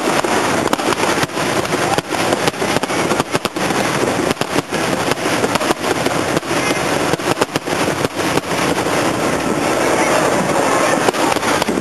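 Fireworks display: frequent, irregular bangs and cracks from aerial shells bursting, over a constant noisy crackling wash.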